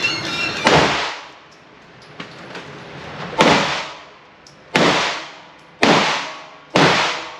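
Gunshots inside an indoor firing range: five sharp shots at uneven intervals, each ringing off in a reverberant echo.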